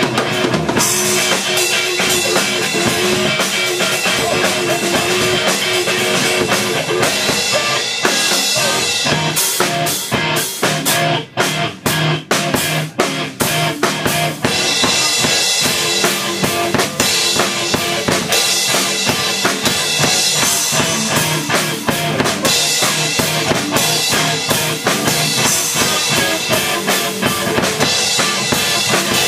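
Rock band playing live in a rehearsal room: drum kit with bass drum and snare, and electric guitar, playing loud. About ten seconds in, the playing turns to a run of separate stop-start hits with short gaps, then resumes as steady playing after about fourteen seconds.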